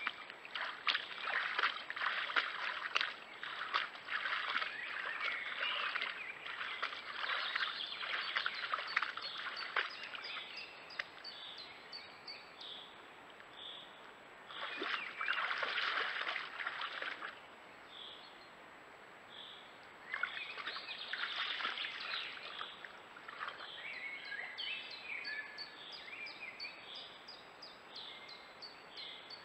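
Young moose wading through a shallow forest stream, its legs splashing and sloshing the water in bursts. Short bird calls come and go, mostly in the second half.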